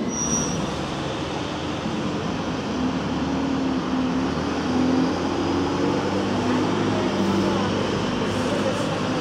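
ADL Enviro200 single-deck bus driving past with a low engine hum, loudest about halfway through, over steady road traffic noise.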